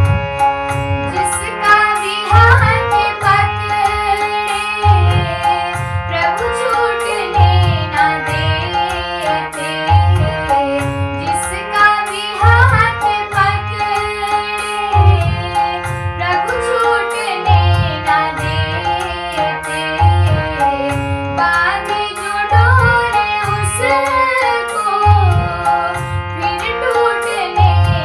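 A Hindi devotional bhajan: a female voice sings a flowing melody over tabla-style percussion and accompanying instruments, with a steady repeating rhythm.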